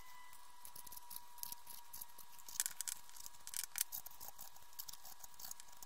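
A handheld paper distressing tool scraped along the edge of a strip of patterned paper, making quick, irregular scratchy strokes, with a louder run of strokes about two and a half seconds in and another near four seconds.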